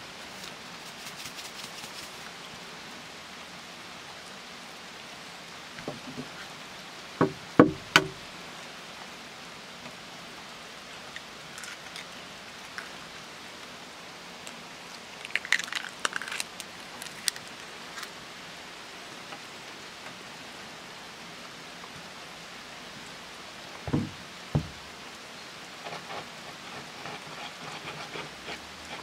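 Eggs being cracked over a wooden bowl of flour: three sharp knocks about seven seconds in, crisp shell cracking around the middle, and two more knocks later. This is followed by soft crackling as fingers work the eggs into the flour. A steady hiss of outdoor ambience runs underneath.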